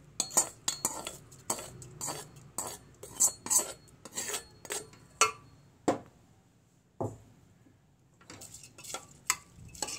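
Metal spoon scraping and clinking against a kadai as the mustard-seed and curry-leaf tempering is tipped into a pressure cooker of cooked chayote kootu. A rapid run of sharp clinks and scrapes pauses about seven seconds in, then more clinks come near the end.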